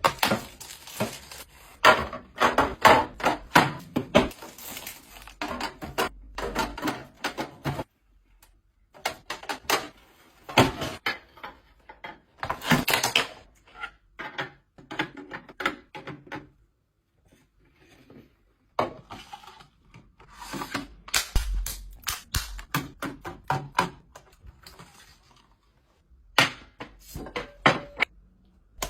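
Household items being handled and set down on a hard surface: irregular clacks and knocks in bursts, with short pauses between them.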